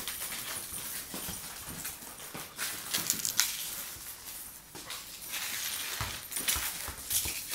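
Two young dogs playing around a football on a tiled floor: quick clicks and scuffles of paws and ball, with a few sharper knocks about three seconds in.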